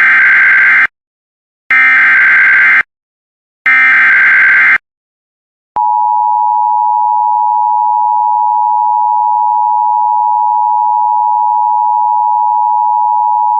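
Emergency Alert System tones: three screeching SAME header data bursts, each about a second long and a second apart, then about six seconds in the steady two-tone attention signal starts and holds. Together they mark the start of a new alert.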